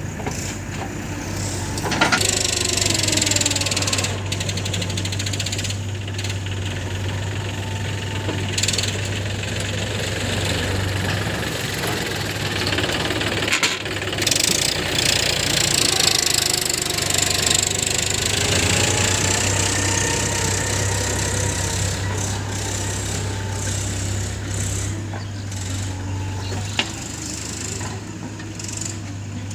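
Diesel engine of a JCB 3DX backhoe loader running under working load, its pitch rising and falling over and over as it digs and loads mud, with a few sharp metallic knocks.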